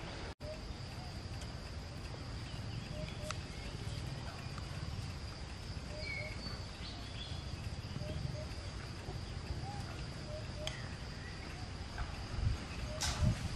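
Outdoor ambience: a steady high-pitched insect drone, with faint, scattered short chirps and calls. A few sharp knocks and thumps near the end.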